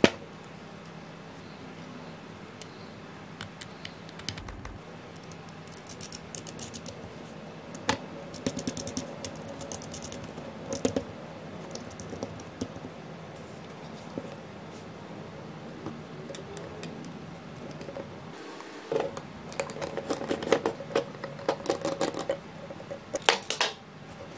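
Small clicks and rattles of a 3D-printed plastic pedal and its metal screws and nuts being handled and fitted together. The clicks come in scattered clusters, busiest about a third of the way in and again near the end.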